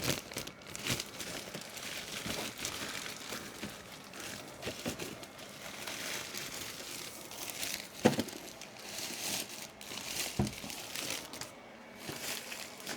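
Packaging crinkling and rustling as a boxed printer is unpacked by hand, with a couple of sharper knocks about eight and ten seconds in.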